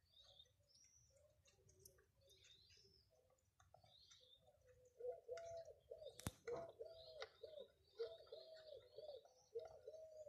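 Faint bird chirps throughout. From about five seconds in, a low cooing repeats evenly at about one and a half calls a second. One sharp click comes just after six seconds.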